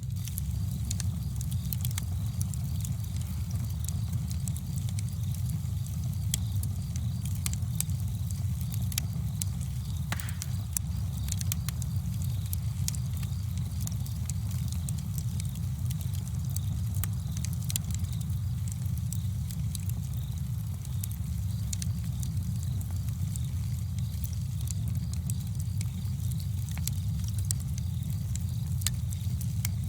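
Campfire burning: a steady low rumble with frequent sharp crackles and pops throughout.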